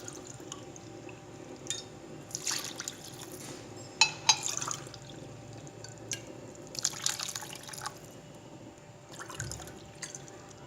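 Water poured from a tumbler into a bowl of roasted semolina in about four short pours of around a second each. There are two sharp clinks about four seconds in.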